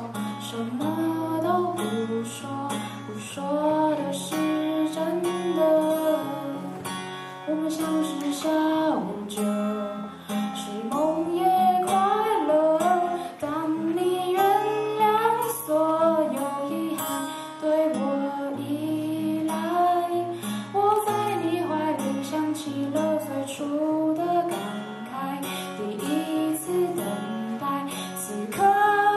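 A woman singing a melody into a microphone, accompanied by a single acoustic guitar.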